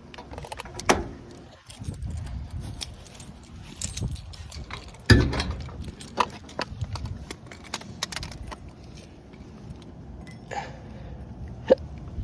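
Metal hardware and hand tools clinking and knocking irregularly while parts are fitted to a generator frame, with a sharp knock about five seconds in.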